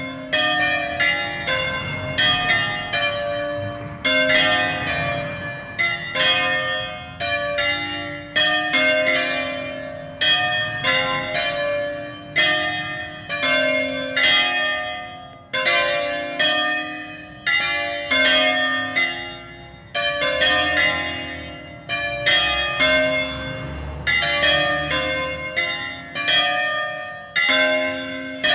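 Four 1928 Angelo Bianchi bronze church bells (C, D, E-flat and F) of an Ambrosian peal ringing together in a distesa, swinging full circle. The strokes come in an irregular, overlapping stream, about one or two a second, each a sharp strike that rings on and fades.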